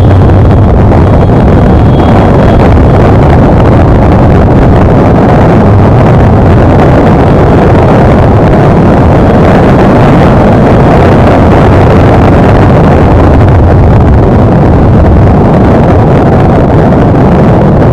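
Loud steady wind rush and rumble buffeting the SJ4000 action camera's built-in microphone as a Suzuki motorcycle is ridden at road speed, with the engine running under it. Once the bike moves, the camera's audio goes harsh, as if knocking.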